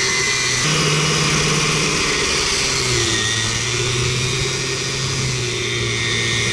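Angle grinder with a cut-off wheel running as it cuts into a rotating hardened steel shaft: a steady motor hum with a grinding hiss over it, the hum's pitch stepping up about half a second in and dropping a little about three seconds in.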